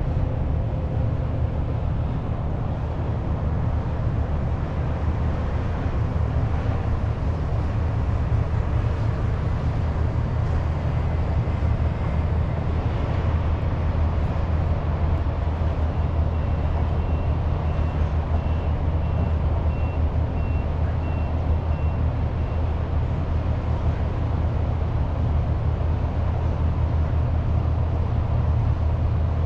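Steady low rumble of city traffic. Midway, a faint high beeping repeats about three times every two seconds for some six seconds.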